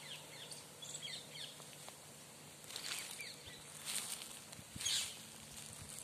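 Outdoor garden ambience: footsteps crunching through dry grass, a few brief rustles with the loudest about five seconds in, and small birds chirping in short falling notes in the background.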